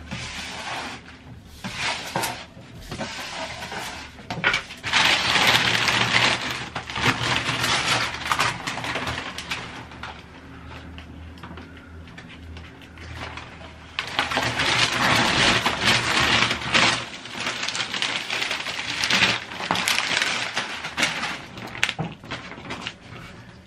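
Self-adhesive foil being peeled and pressed onto a countertop: crackling, rustling plastic film with small clicks, in two long stretches with a quieter spell between.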